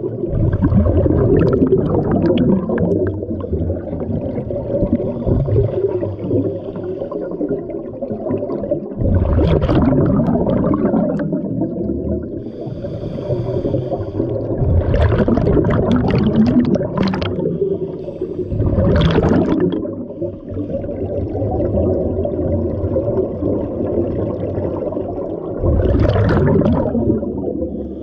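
Underwater sound of a scuba dive: a steady muffled rumble, broken four times by bursts of exhaled bubbles from a diver's regulator.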